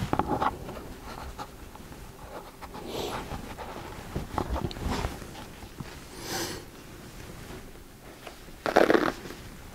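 Hands rubbing and pressing self-adhesive vet tape wrapped over foam on a rifle stock: soft scattered rustling and scraping of the crinkly wrap, with one louder brief rasp near the end.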